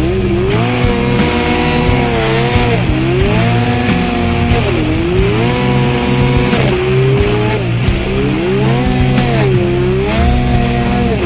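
Arctic Cat M1000 snowmobile's twin-cylinder two-stroke engine revving hard and easing off again and again as the throttle is worked through deep powder, its pitch rising and falling several times.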